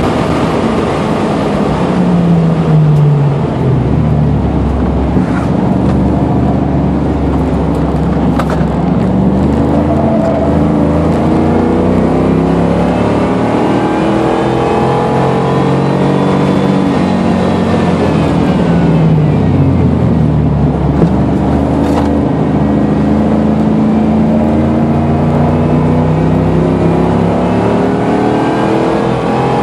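1989 Pontiac Firebird Trans Am engine heard from inside the car at track speed. The revs fall as it slows about three seconds in and again around eighteen seconds, and climb under acceleration in between and toward the end.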